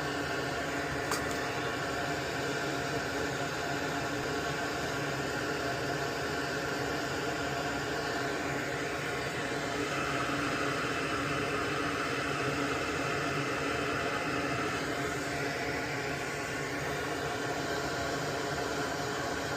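Steady whirring hum and hiss of a small motor or fan, a little stronger in its middle pitch for a few seconds midway. There is one light click about a second in.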